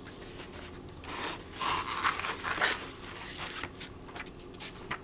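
Paper pages of an old softcover book being flipped, a run of dry rustles and flicks that is loudest between about one and three seconds in.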